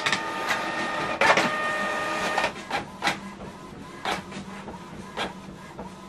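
Canon PIXMA MG3650 inkjet printer working through a print job. A feed motor whirs for the first couple of seconds, then the print head moves in short strokes at about one a second.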